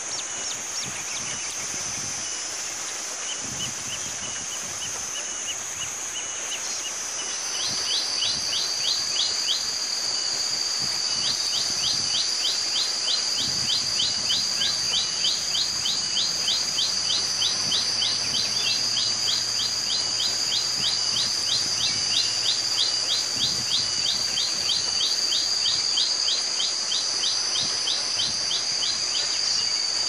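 Common tailorbird singing a long run of sharp, rapidly repeated notes, about three a second, starting a quarter of the way in with a short pause soon after. Behind it, a steady high insect drone runs throughout.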